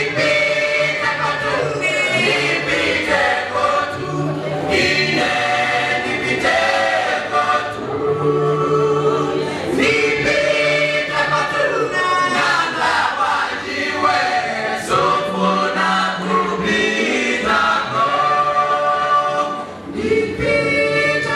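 All-male a cappella group singing a gospel song in harmony through handheld microphones, with no instruments. Low held notes sit under the higher lead voices.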